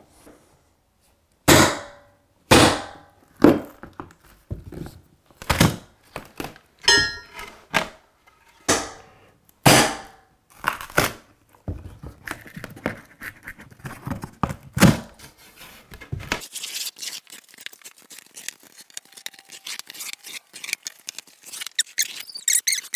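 Wooden wainscot battens being pried off drywall: sharp knocks and thunks about once a second as the lightly nailed, thinly glued boards break loose, with a brief squeak near seven seconds. After about sixteen seconds, lighter crackling and ticks.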